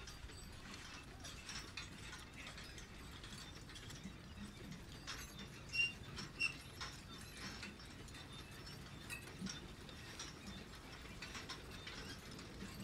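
Faint mechanical clicking and whirring, with scattered small ticks and two slightly sharper clicks about six seconds in.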